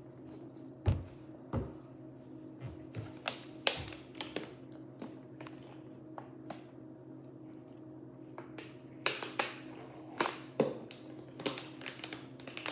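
Plastic Lego bricks being handled and pressed together: irregular clicks and taps, a few louder knocks among them, over a steady low hum.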